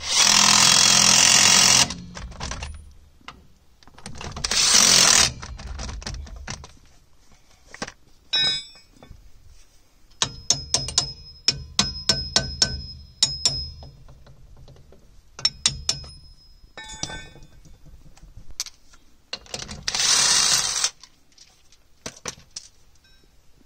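A socket wrench clicking and clinking on the nuts of a wheel spacer being fitted to a rear brake drum, in quick runs of sharp metallic clicks that ring slightly. Three short bursts of harsh hissing noise break in, at the start, around five seconds in and near the end.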